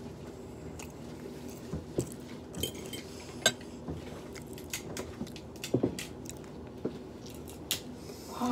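Eating at a plate of seafood: scattered clicks and taps of a fork and shrimp shells against the plate, with chewing and the crackle of shells being peeled by hand, over a steady low hum.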